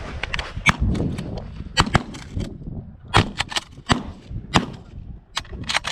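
A rapid, irregular string of about a dozen sharp cracks and clicks over wind noise, the loudest about a second in and again near the middle.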